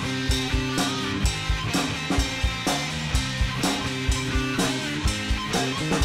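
Instrumental rock jam played live by a full band: a drum kit keeping a steady beat of kick and snare hits under electric guitars and a bass guitar holding sustained notes.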